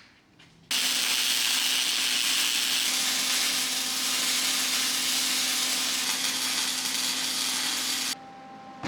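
Small welder's arc sizzling steadily through one long weld bead on steel bed framing. It starts just under a second in and cuts off sharply about a second before the end.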